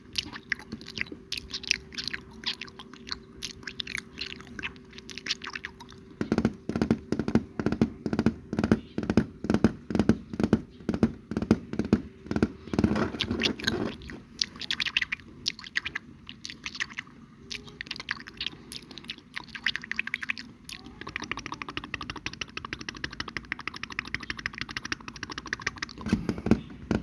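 Close-miked ASMR mouth sounds: a quick, rhythmic run of wet clicks and smacks, several a second, growing louder and fuller from about six seconds in until about fourteen seconds.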